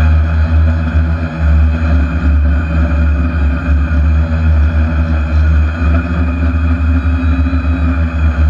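A spider hexacopter's six electric motors and propellers humming steadily while it hovers, heard from the GoPro mounted on the drone itself, over a loud, fluttering low rumble.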